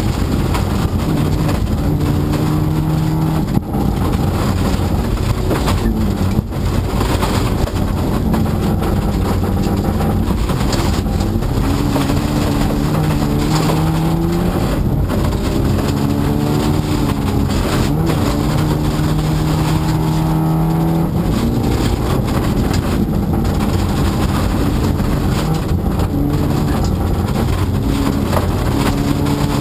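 Rally car engine heard from inside the cabin at speed, its pitch climbing again and again and dropping back at each gear change, over loud tyre and road noise.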